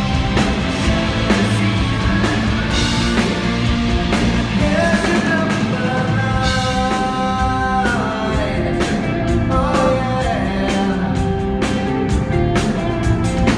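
Rock band playing live, with singing over a steady drum beat and bass, and long held notes in the middle.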